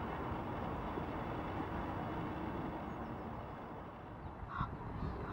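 Steady low outdoor rumble, then about four and a half seconds in a goose starts honking with short, repeated calls.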